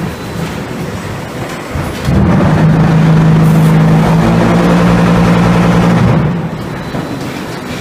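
Concrete paver-stacking gripper robot and its production line running. A loud, steady low drone comes in about two seconds in and stops about six seconds in, over constant machinery noise.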